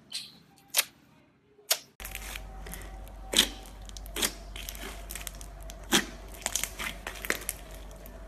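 Slime being squeezed and pressed by hand, giving sharp clicking pops and crackles. About two seconds in, the sound changes to a steady low hum with a denser run of crackles over it.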